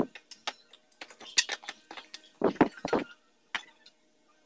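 Pliers prying old nails out of a wooden sofa frame: short bursts of metallic clinks, scrapes and wood knocks in about two clusters, with a single sharp click near the end.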